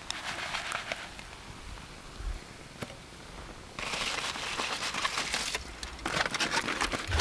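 Crinkling and rustling in three bursts, each a second or two long, with sharp crackles running through them.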